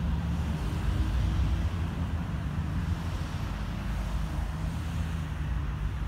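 2002 Chevrolet Avalanche's engine idling with a steady low hum.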